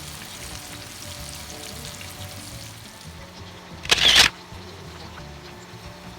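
Chicken karaage frying in oil with a faint steady sizzle, under background music. About four seconds in comes one short, loud burst of noise.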